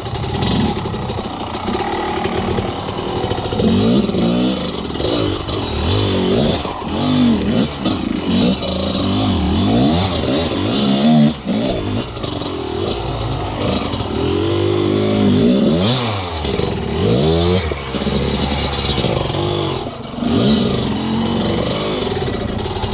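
Enduro motorcycle engine revving up and down over and over as the throttle is worked.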